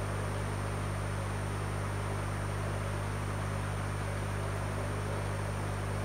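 Running aquarium equipment: a steady low mains-frequency hum with its overtones over an even hiss.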